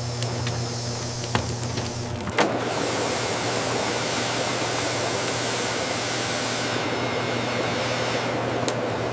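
Factory production-line machinery running with a steady low hum and a few sharp clicks; about two and a half seconds in, a louder rushing hiss joins and carries on.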